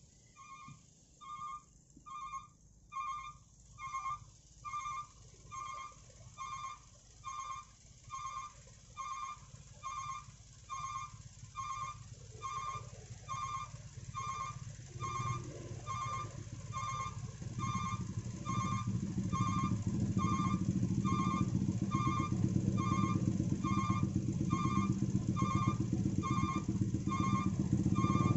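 A high electronic beeper sounds over and over, about one and a half beeps a second, steady in pitch. Behind it, the low rumble of heavy engines idling in traffic grows louder from about halfway through.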